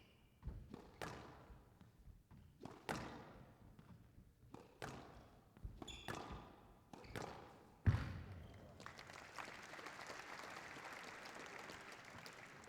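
Squash ball being struck by rackets and smacking off the court walls in a rally, roughly once a second, with a loudest hard thud about eight seconds in. After it comes steady audience applause.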